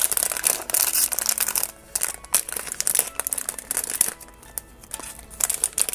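POP MART foil blind-box bag crinkling as it is squeezed and handled, in irregular bursts with short quieter pauses.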